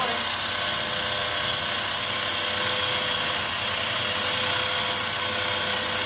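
Harbor Freight Badland 2500 ATV winch, a 12-volt electric winch, running steadily under load as it reels in its steel wire rope: a constant, very loud motor-and-gear whine.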